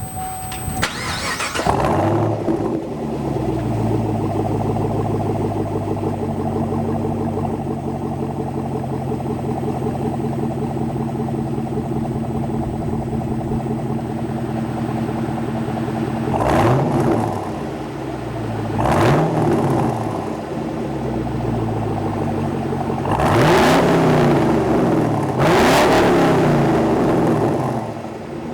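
2010 Chevrolet Camaro SS 6.2-litre V8 on straight pipes with the mufflers deleted, starting up with a flare about two seconds in, then idling with a loud, open exhaust note. Near the end it is revved four times, each rev rising and falling back to idle.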